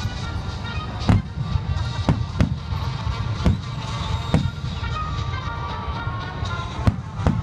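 Aerial fireworks shells bursting in a finale, about six loud low booms at uneven intervals with smaller cracks between, over music playing.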